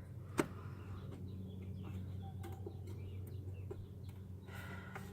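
Birds calling in short chirps over a steady low hum, with one sharp click about half a second in.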